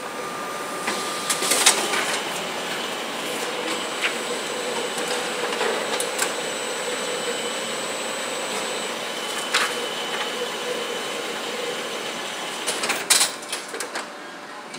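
UTAX colour multifunction copier running with a steady mechanical hum, which fades out about twelve seconds in. Scattered clicks are heard throughout, and a cluster of louder knocks comes near the end as the document processor lid is handled and closed over the chart on the glass.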